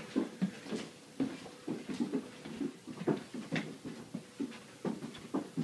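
Footsteps of several people walking briskly across a floor: quick, irregular thuds.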